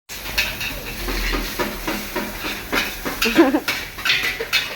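A metal spatula scraping and clanking against a wok, two or three strokes a second, over steady sizzling as fried rice is stir-fried. A brief pitched warble comes about three and a half seconds in.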